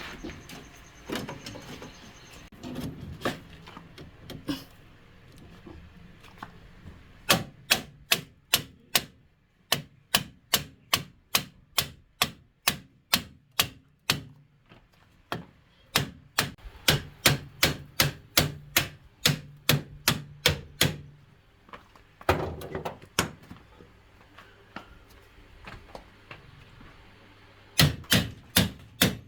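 Hammer tapping in quick, even runs of about three blows a second, with pauses between runs; a few seconds of rubbing or scraping come before the first run.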